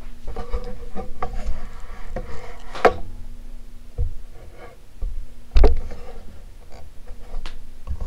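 Commander Angel ceiling fan motor humming as it starts from standstill and spins up, a fan whose bearings the owner judges badly worn. Scattered clicks and knocks sound over the hum, the loudest a thump about halfway through.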